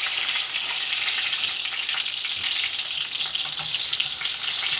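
Beef meatballs frying in a pan, browning: a steady sizzle with small crackles.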